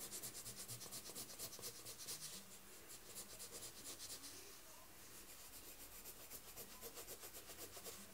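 A green coloured pencil shading on sketchbook paper: fast, even back-and-forth strokes, faint and scratchy.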